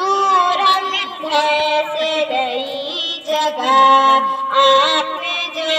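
Children singing a song, with long held notes that slide between pitches.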